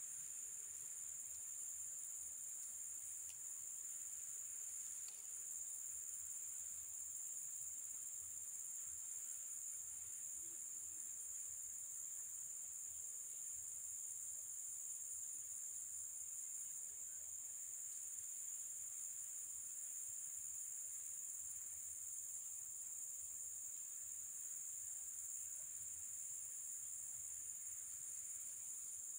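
Insect chorus, a steady high-pitched drone with no break or change.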